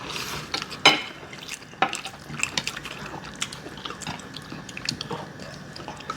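Eating ramen noodles: a run of short wet slurps and mouth smacks mixed with light clicks of a fork on a bowl, with a sharper click about a second in.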